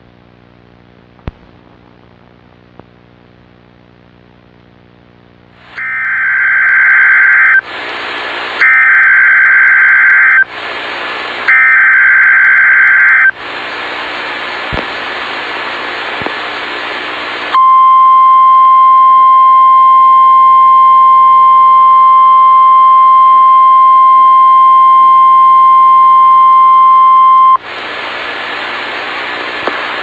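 Emergency Alert System header: three bursts of screeching data tones about two seconds each, with hissing static between them. A steady single-pitch attention tone like the weather radio's 1050 Hz signal follows for about ten seconds, then static hiss. Before the header there are about six seconds of faint hum.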